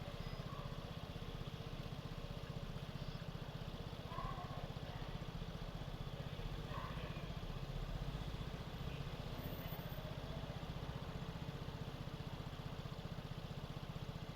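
Vespa scooter's single-cylinder engine idling steadily.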